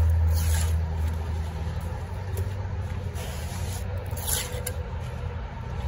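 Low rumble of a passing road vehicle, loudest at the start and slowly fading. Over it come two short scrapes of a steel trowel on mortar, about half a second in and again just past four seconds.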